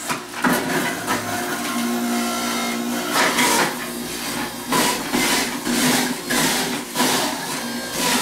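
Electric centrifugal juicer running with a steady motor hum, with repeated grinding surges as vegetables are pushed down the feed chute, coming about every half second in the second half.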